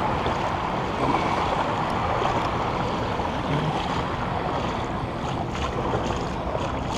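Small waves lapping and breaking in shallow bay water, with wind on the microphone: a steady rush without rhythm.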